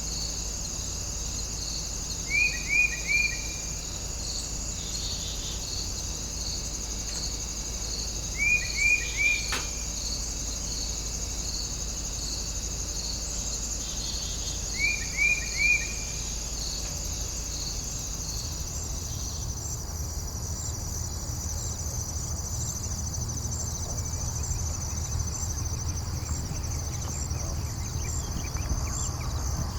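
A steady chorus of chirping crickets, high and pulsing. Three times, about six seconds apart, a louder call of three quick falling notes cuts through it. About two-thirds of the way in, the lower of the pulsing trills stops.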